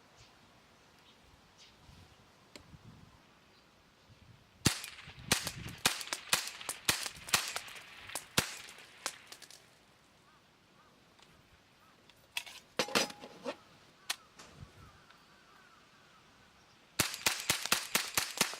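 Marushin Combat Commander HW cap-firing model gun shooting with cap-loaded cartridges: a rapid string of sharp reports, a few separate shots, then another rapid string near the end.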